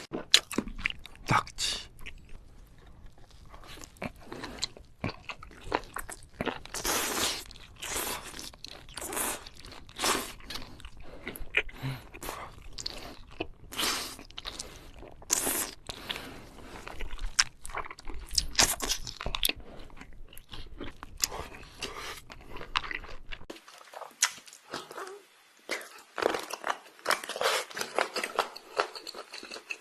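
Close-miked eating of seafood: crunchy bites and chewing, heard as a dense, irregular run of sharp crackles and clicks.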